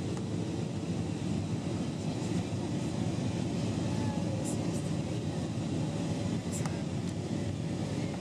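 Steady cabin noise inside an Airbus A320-232 on its descent: the low rumble of its IAE V2500 engines and the rush of air over the fuselage. The level stays even throughout, with a couple of faint clicks.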